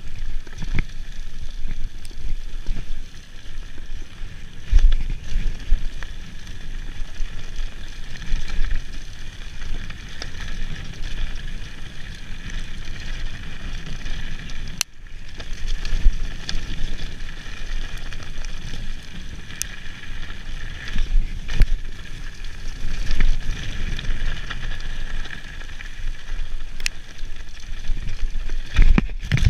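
Mountain bike ridden fast over a bumpy dirt singletrack: a steady rumble of tyres and rattling bike with frequent sharp knocks as it hits bumps, and a brief dip about halfway.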